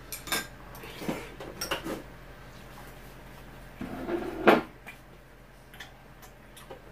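Tableware clattering at a meal: a few separate knocks and clinks of spoons, bowls or a pot, the loudest about four and a half seconds in.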